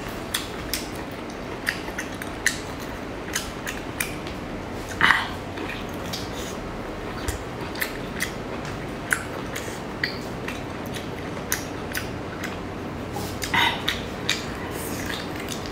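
Close-miked eating of whole prawns: chewing and lip-smacking with many short sharp clicks, and two louder, longer mouth sounds about five seconds in and near the end.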